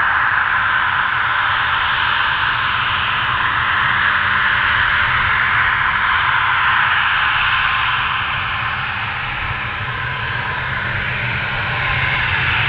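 Bombardier Global 6000's twin Rolls-Royce BR710 turbofans running at taxi power: a steady jet whine and hiss over a low rumble. It eases slightly about nine seconds in and builds again near the end.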